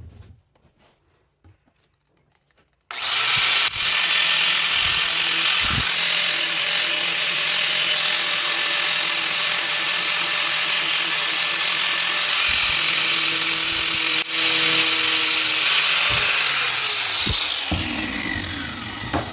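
Angle grinder with a flap disc grinding the bevel of a steel chisel: it starts about three seconds in with a steady, high whining grind. Near the end its pitch falls as the motor winds down.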